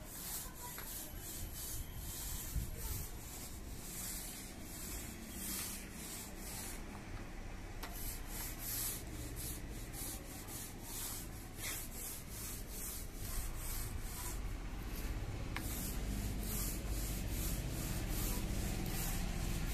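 Paint roller on a long pole rolling wet floor paint over the floor: a rasping swish with each quick back-and-forth stroke, about two strokes a second, with a short pause about seven seconds in.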